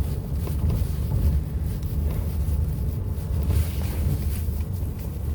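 Steady low rumble of a car driving, with wind noise on the microphone.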